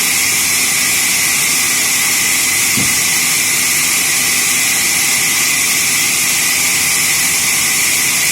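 Sawmill saw running steadily: a loud, even hiss with no change in level.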